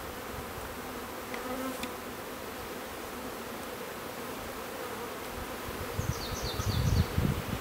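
Honeybees buzzing in a steady hum around an open hive as a package of bees is installed. About six seconds in, four quick high chirps sound, and a low rumble builds and grows louder toward the end.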